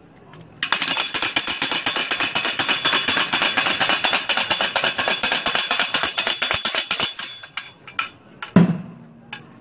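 Processional percussion rattling in a rapid, even clatter. It starts suddenly, runs about seven seconds and then dies away, followed by a few loose clicks and a loud thump near the end.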